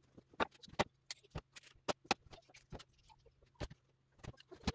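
Irregular sharp clicks and knocks of hand tools and metal parts being handled during motorcycle assembly, several a second with a short lull in the middle, over a faint low hum.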